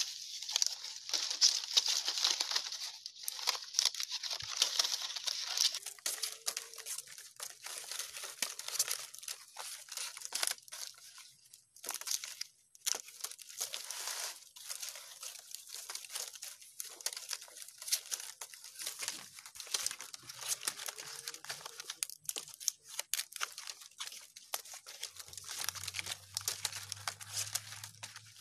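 Green coconut palm leaflets rustling and crackling as they are pulled, bent and interlaced by hand in weaving: a dense run of crisp crinkles, with a brief lull about twelve seconds in. A faint low hum joins near the end.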